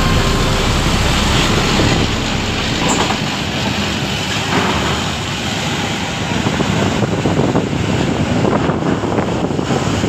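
Large coach bus engine running as the bus drives slowly up a ferry's steel loading ramp, with a low rumble that thins out after about three seconds.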